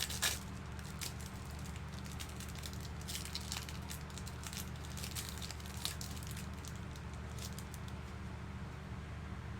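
Crinkling and rustling of a trading-card pack wrapper and cards being handled, in scattered short crackles that die down after about seven seconds. A steady low hum runs underneath.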